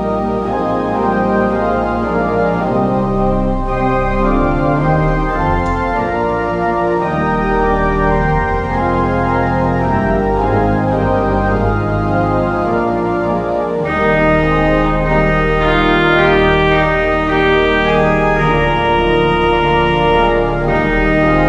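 Background organ music in slow, sustained chords, becoming fuller and a little louder about fourteen seconds in.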